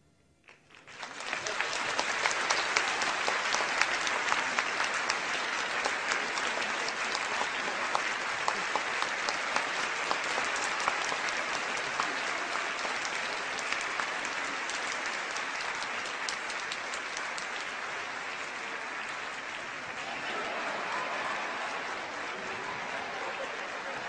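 Theatre audience applauding. The applause breaks out about a second in, holds strong, and eases a little in the last few seconds.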